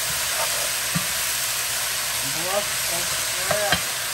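Brussels sprouts, broccoli and onion sizzling in a hot nonstick skillet with a steady frying hiss as they are stirred with a spatula, which knocks against the pan about a second in and twice near the end.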